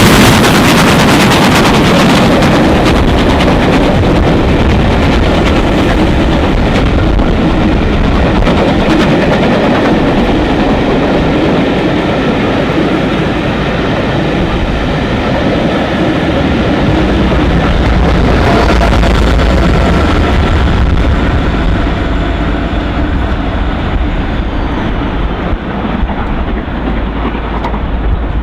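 Class 37 diesel-electric locomotive 37905, with its Ruston engine, running steadily close by while shunting. A deeper rumble builds from about halfway.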